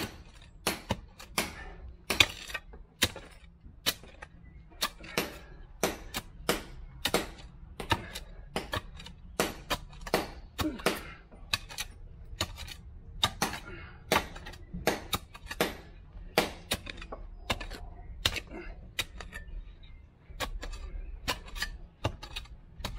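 A steel spade chopping down into lawn turf and soil while a shallow trench is dug, a rapid, irregular run of sharp chops at about two a second.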